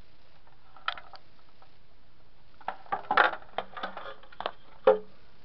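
Hard plastic TV cabinet parts and a speaker being handled: a single click about a second in, then a cluster of knocks and rattles, and a louder knock with a brief ring near the end.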